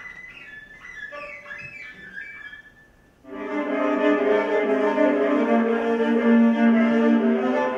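A soft, high melody of short notes, then a brief pause about three seconds in, after which a violin starts playing loud, sustained bowed notes.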